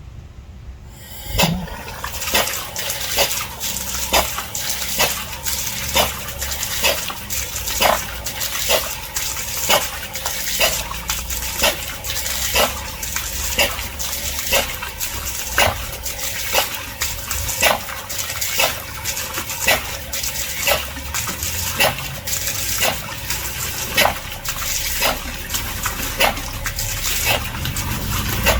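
Versa-Matic air-operated double-diaphragm pump running on test after an overhaul, cycling steadily with a sharp air-exhaust stroke about once a second over a continuous hiss. It starts about a second in.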